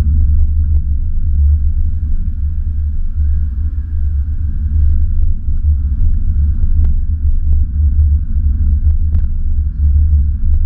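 Steady heavy rumble of a car driving slowly over cobblestones, picked up through a camera mounted on the car's side, with a few faint clicks and rattles.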